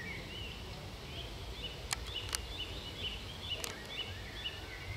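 Birds chirping in the background, many short high chirps one after another, with a few sharp clicks about two and three and a half seconds in, over a low rumble.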